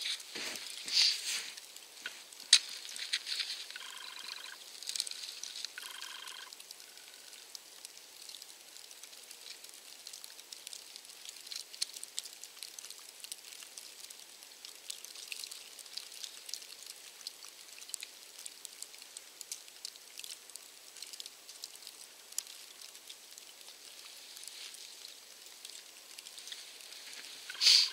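Spruce-twig kindling burning on a tree stump, crackling with a dense run of fine snaps, a few louder ones in the first couple of seconds. A brief louder sound comes just before the end.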